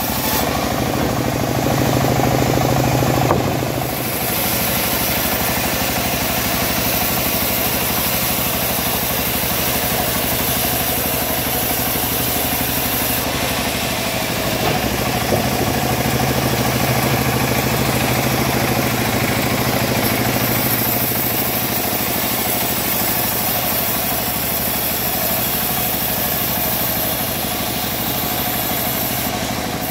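Homemade bandsaw mill running steadily while its blade saws a teak log, a continuous machine drone with a high hiss. The low hum grows louder for a few seconds near the start and again midway.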